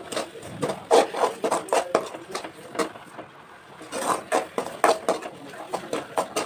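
A metal slotted spoon scraping and knocking against an aluminium kadai as it stirs a thick frying tomato-onion masala, in quick repeated strokes with a brief lull about halfway through.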